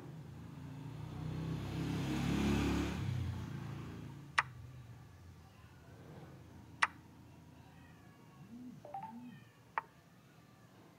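Three sharp clicks of chess pieces being moved in a chess app, spread a few seconds apart. Under them are animal calls that sound like a cat meowing: one drawn-out low call a couple of seconds in, the loudest sound here, and two short rising-and-falling calls near the end.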